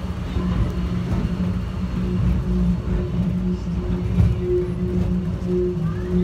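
Airport subway train running between stations, heard from inside the car: a steady low rumble with a humming tone that pulses slightly.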